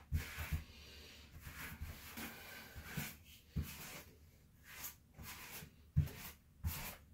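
Rubber grout float scraping and smearing grout across ceramic wall tiles in irregular strokes, with a few dull knocks.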